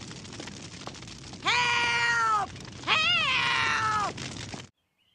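An old woman's voice crying out twice for help, two long drawn-out calls, the second rising and then falling, over a faint crackle of fire. The sound cuts off abruptly near the end.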